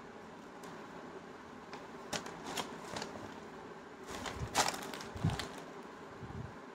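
Packaging and fabric rustling and crinkling as a folded top is unwrapped and pulled out by hand: a run of crackles starting about two seconds in, loudest a little past the middle, with a soft thump just after.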